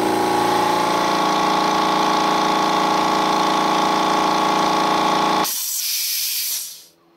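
Oil-free air compressor running steadily as it pumps up the tank, then cutting off at the pressure switch about five and a half seconds in, with the unloader valve releasing a short, fading hiss of air from the line.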